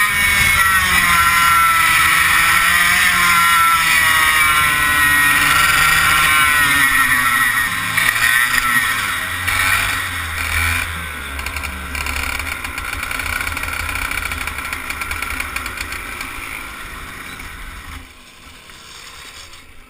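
100cc two-stroke kart engine at high revs, its pitch wavering up and down, then easing off with falling revs as the kart slows. The engine sound drops away sharply near the end.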